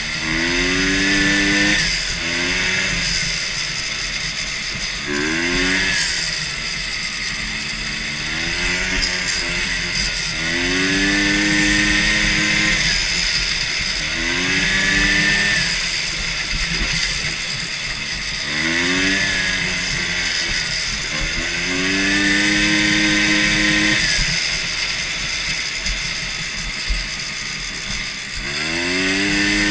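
A racing lawn mower's 250cc Ski-Doo Rotax two-stroke engine revving up over and over: each time the pitch rises in a curve, holds briefly, then falls back, about nine times.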